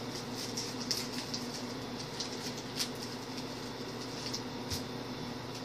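Faint clicks and rustling of sports-card packs and cards being handled, over a steady electrical hum.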